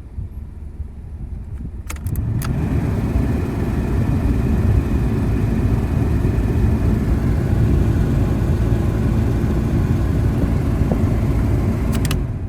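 Ford Probe's air-conditioning blower switched on with a click about two seconds in, blowing a loud steady rush of air over the engine's low idle. It is switched off with clicks near the end, and the air conditioning is running properly.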